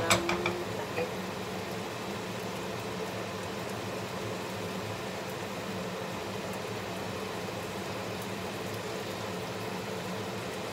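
Chicken and ginger sizzling steadily in a frying pan over a gas flame. A few sharp knocks of a wooden spatula against the pan at the very start.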